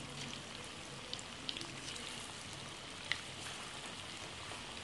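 Hot oil sizzling steadily as batter-coated chicken pieces deep-fry in a pan, with a few sharp pops and crackles, the loudest about three seconds in.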